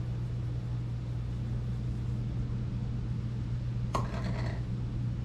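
A steady low hum, with a sharp click and a brief clatter about four seconds in as a small item is set down on the kitchen counter.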